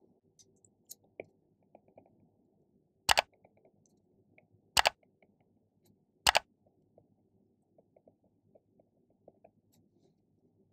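Three sharp mouse-click sound effects about a second and a half apart, the clicks of a like, subscribe and bell-button overlay animation. Under them, a faint low background noise with a few soft ticks.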